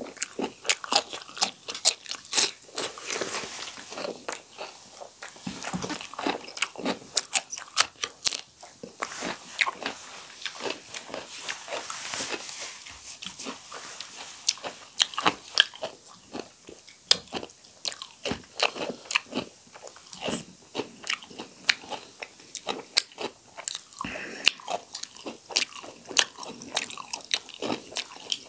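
Close-up eating sounds of whole roast chicken eaten by hand: repeated crunching bites and wet chewing, with many sharp irregular crackles.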